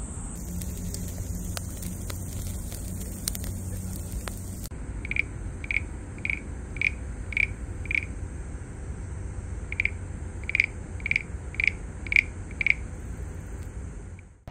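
Frog calling at night, short calls at about two a second, six calls, a pause, then six more, over a steady high trilling of insects. About the first third is instead scattered crackling from a charcoal grill.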